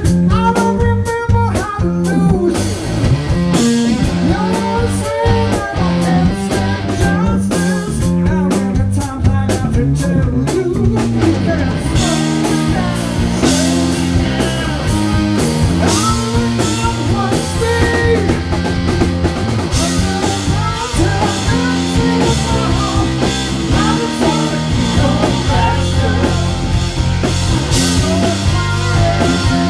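Live rock band playing: a Telecaster-style electric guitar over a drum kit. The sound is sparse at first and grows fuller with cymbals about twelve seconds in.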